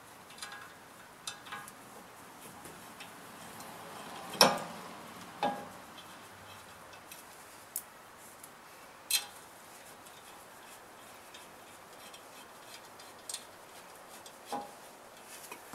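Sparse metallic clicks and clinks, with one louder knock about four seconds in, as the small retaining screws are set into a new front brake rotor on the hub and started in with a screwdriver.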